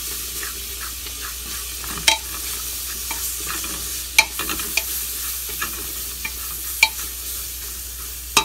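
Chopped onion and garlic sizzling in olive oil with seasonings in a metal pot, stirred with a spatula. There are a few sharp scrapes and taps of the spatula against the pot, the sharpest about two, four and seven seconds in.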